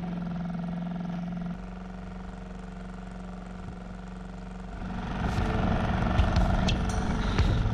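A boat's engine running with a steady hum. About five seconds in it turns louder and rougher, with scattered sharp clicks and knocks.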